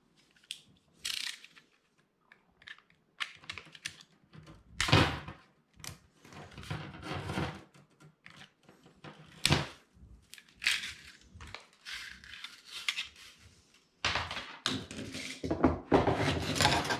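Irregular knocks, clatters and rustling of equipment and packaging being handled, with short noisy scrapes coming in bursts.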